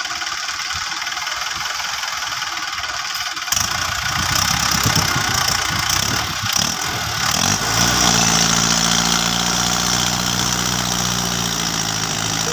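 Mahindra Arjun tractor's diesel engine running lightly, then revving up sharply about three and a half seconds in and holding a steady, loud, high-rev drone from about halfway. The engine is under heavy load, pulling a trolley full of sand out of a pit.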